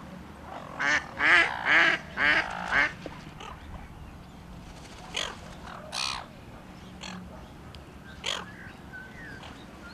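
Ducks quacking: a quick run of five loud quacks, then three single quacks spaced out after it.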